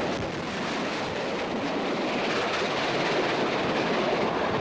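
NSW 38 class steam locomotives 3801 and 3830, double-heading a passenger train, running past close by: a steady, dense rushing noise of the locomotives and carriages on the rails.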